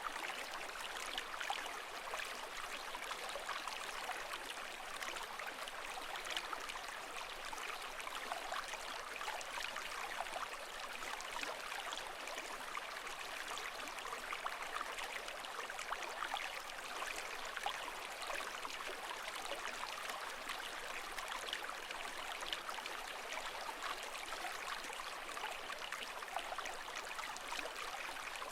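Running water: a steady, even rush with many small splashes, holding level without the rise and fall of breaking waves.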